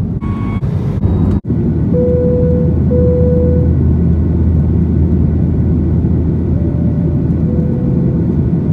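Steady low rumble of a jet airliner's engines and airflow heard from inside the cabin, with a faint steady whine on top. In the first second and a half the sound changes abruptly a few times and drops out briefly, where clips are cut together.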